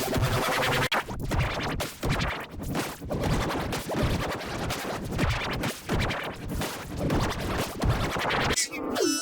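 Heavily effects-distorted audio, choppy and scratchy like a record being scratched, stuttering several times a second. Near the end it switches to wavering tones that swoop up and down.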